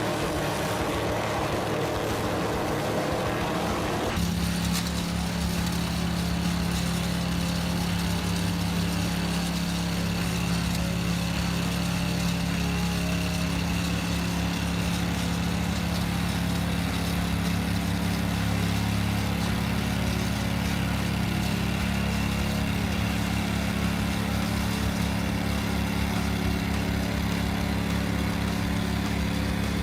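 A motor running steadily, its sound changing abruptly about four seconds in to an even engine hum with a low throb.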